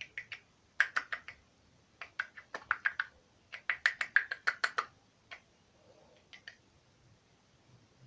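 Slime being squeezed and poked by hand, giving quick runs of small sharp clicking pops in several bursts, the longest a dense run about halfway through, then a few scattered pops near the end.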